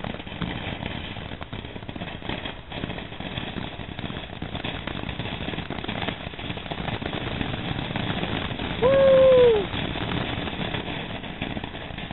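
Ground fountain firework spraying sparks: a steady hiss with scattered crackles. About nine seconds in, a short high call from a child rises above it, the loudest sound, dropping in pitch at its end.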